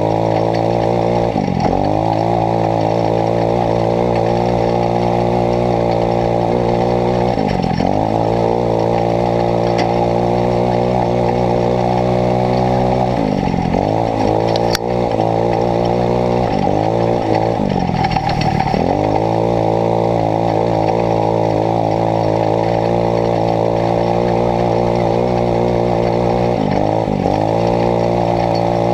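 150cc Kandi dune buggy's single-cylinder four-stroke engine running hard down a trail, its pitch dropping and climbing back about five times as the throttle is eased off and reapplied. A single sharp knock about halfway through.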